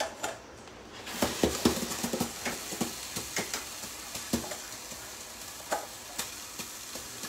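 Pot of tomato-based fish soup sizzling on the hob, a steady hiss that gets louder about a second in, with scattered clicks and knocks of a spoon against the metal pans.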